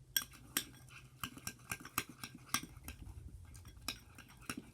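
A utensil stirring slime in a bowl, clicking and tapping against the bowl in an irregular string of sharp knocks, a few a second, as activator is mixed into the glue and it clumps together.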